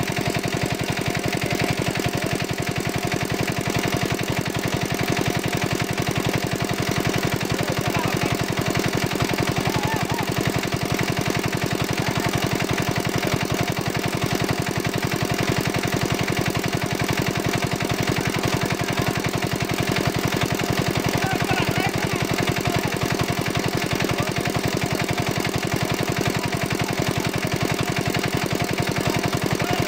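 Small engine running steadily with a fast, even chug and no change in speed. It drives the pump that draws water out of the pond through the hose laid across the mud.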